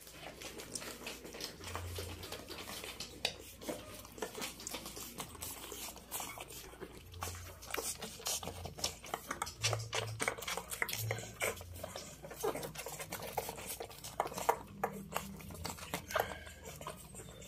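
Newborn puppies suckling at their mother's teats: quick, irregular, wet smacking clicks with small low grunting sounds here and there.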